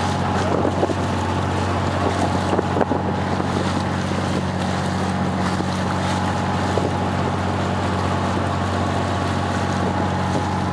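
Boat engine running at a steady hum, with water washing past the hull and a few short splashes in the first few seconds.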